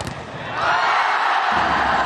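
A sharp knock at the start, then a large arena crowd's noise swelling up about half a second in and staying loud as a volleyball rally goes on.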